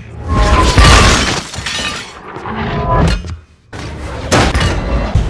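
Action-film sound effects: glass shattering and crashing impacts, several in quick succession, with a brief drop to near quiet about three and a half seconds in.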